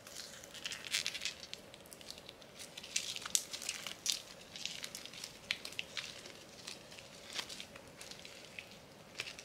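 Soft slime with bead sprinkles squeezed and stretched by hand, giving quiet, irregular sticky crackles and small pops.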